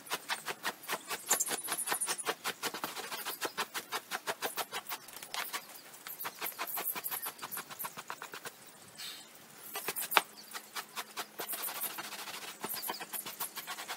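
A damp hand brush being swept hard over a hanging shaggy rug: quick repeated scrubbing strokes, about five a second, with a brief pause a little past the middle.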